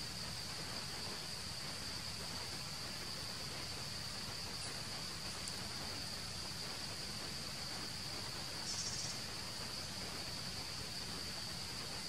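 Insects droning steadily on one high-pitched tone, over faint outdoor hiss. About nine seconds in, a short burst of rapid higher chirping cuts in over the drone.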